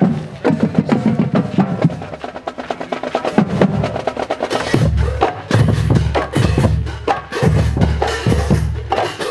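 Marching band drumline playing a street cadence: rapid snare drum strokes and rolls, with deep bass drum notes coming in strongly about halfway through.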